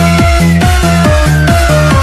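Electronic dance music with a fast, steady kick-drum beat and a synth tone gliding slowly down in pitch.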